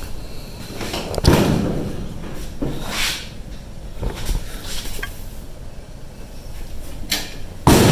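Two loud bangs, about a second in and near the end, each fading away slowly in the garage, with softer scuffs and knocks between them.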